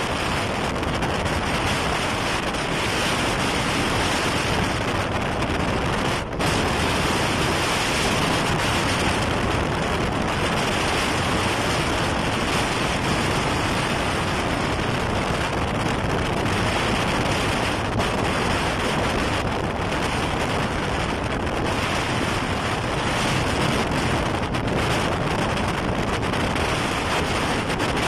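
Storm wind buffeting the microphone over rough sea, a loud steady rush of noise with a brief drop about six seconds in.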